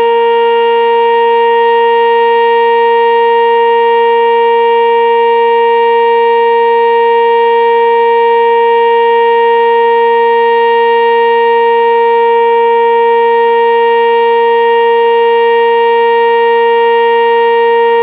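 Sentry 10V2T two-tone outdoor warning siren sounding its steady Alert signal at full speed. It holds one loud, unchanging chord-like tone throughout.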